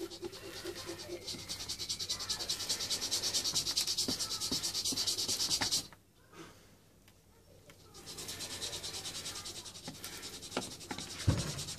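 Fast, evenly pulsing rasping of a tool working the plastic of a motorbike panel during a crack repair. It stops about six seconds in and starts again two seconds later, with a few sharp clicks.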